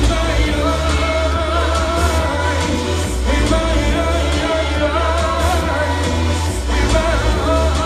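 Live concert music: a man singing into a microphone over a loud electronic techno beat with heavy bass.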